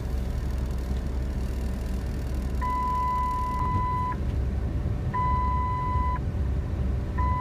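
Car driving slowly on a snow-covered road, heard from inside the cabin as a steady low engine and road rumble. A long, even electronic beep sounds three times over it, each lasting about a second.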